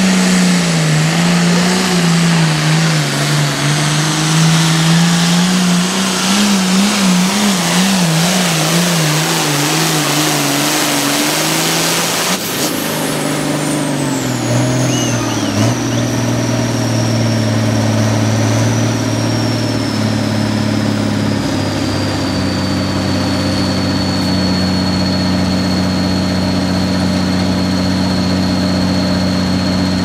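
Turbocharged diesel engine of an International hot farm pulling tractor at full throttle under the load of the sled, its pitch wavering up and down. About twelve seconds in it drops abruptly to a lower, steadier note: the engine throttled back at the end of the pull, with a high turbo whistle falling in pitch and then holding steady as it idles.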